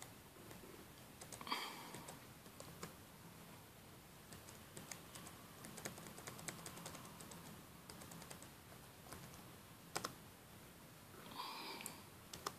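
Faint tapping and clicking of a Lenovo Y500 laptop's keys, with one sharper click about ten seconds in. Two short high-pitched tones sound, about a second and a half in and near the end.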